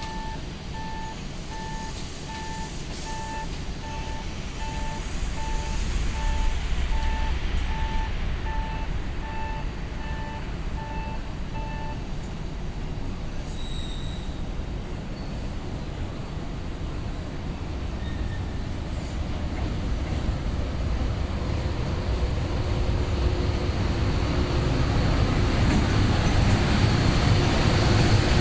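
Station approach warning beeping evenly, about two beeps a second, which stops about twelve seconds in. Under it, the low rumble of a freight train hauled by an EH500 electric locomotive grows steadily louder as the train comes into the station.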